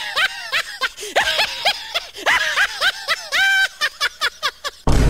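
High-pitched, cartoonish laughter in quick bouts of 'ha-ha' syllables, with one drawn-out squealing note near the end. Just before the end, a much louder, dense sound with heavy bass cuts in abruptly.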